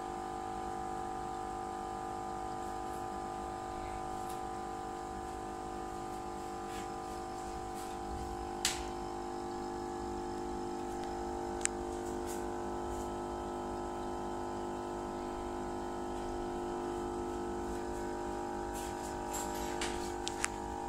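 Aquarium air pump humming steadily with several fixed tones, over water bubbling from an air stone, with a few sharp clicks, the clearest about nine and twelve seconds in.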